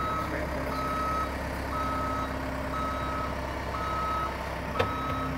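Forklift's back-up alarm beeping about once a second over the low hum of its engine. A single sharp knock sounds near the end.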